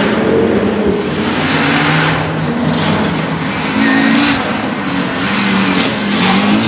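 Audi Quattro Group A rally car's turbocharged five-cylinder engine running hard under acceleration, its pitch rising and dropping several times.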